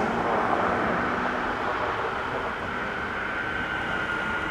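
Jet engines of a Boeing 767-300ER landing: a steady rushing noise that slowly fades, with a thin high whine coming in about halfway through.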